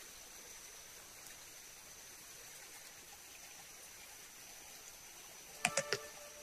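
Quiet forest ambience with a steady high-pitched insect drone. About five and a half seconds in come three quick sharp clicks close together, the loudest thing heard.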